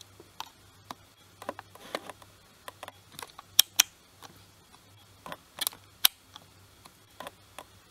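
Irregular small clicks and taps of a knitting needle being worked into the edge of a knitted square and against the knitter's fingernail while picking up stitches, with a few sharper clicks a few seconds in and again about six seconds in.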